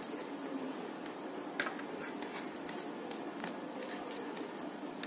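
Fingers mixing and squishing boiled rice with dal on a plate, with a few light clicks against the plate, the sharpest about one and a half seconds in.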